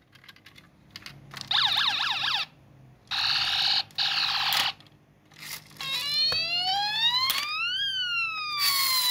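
Electronic siren sound effects from toy ambulances: a short fast yelping siren about a second and a half in, a second warbling siren at about three seconds, then from about six seconds a slow wail that rises and then falls.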